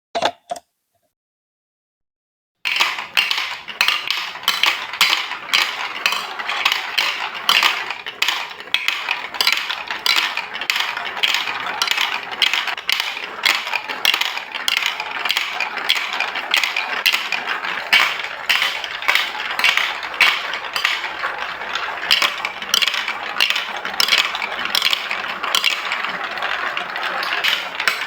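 A single brief click, then after about two seconds of silence a dense, continuous clatter of many marbles rolling and knocking along a Lego Duplo building-block marble run.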